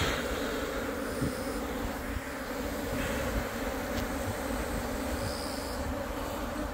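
Korean native honeybees (Asian honeybees) buzzing steadily in a dense hum around the hive, with a brief knock at the start.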